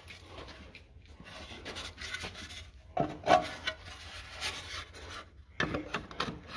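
Gloved hands handling wooden boards: irregular scraping with a sharp knock about three seconds in and more clatter near the end.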